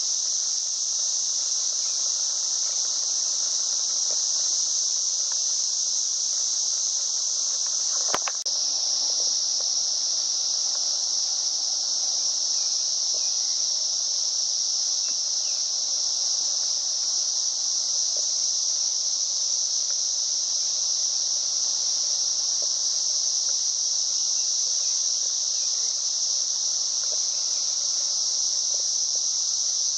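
A steady, high-pitched insect chorus that drones on without a break. There is one short click about eight seconds in.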